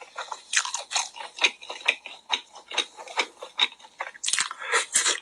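Close-miked crunchy chewing and biting of a frog, a quick irregular run of crackling crunches that grows denser and louder near the end.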